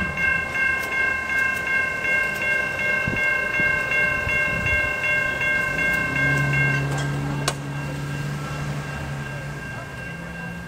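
Railroad crossing warning bells ringing in a rapid, even pulse as the quad gates come down. About seven seconds in, part of the bell sound stops and a single bell tone goes on ringing. A low steady drone comes in about six seconds in.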